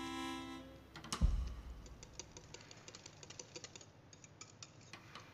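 Background music fades out in the first second, then a single thump. After it comes a wire whisk beating cake batter in a glass bowl: a quick, irregular run of light clicks as the wires tick against the glass.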